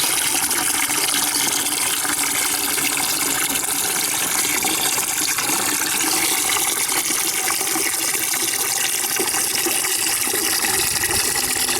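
Water pouring steadily into a bucket as it fills.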